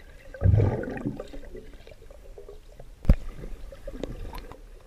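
Underwater sound heard through a submerged action camera: muffled gurgling and churning of water and air bubbles as a swimmer moves close by. There is a loud low swirl about half a second in that dies away over a second, and a single sharp knock about three seconds in.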